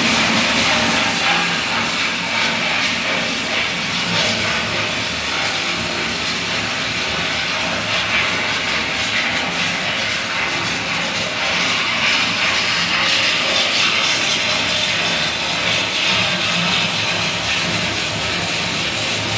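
Water spraying and gushing out of a drain pipe into a pit as the pipe is flushed, a steady rushing noise.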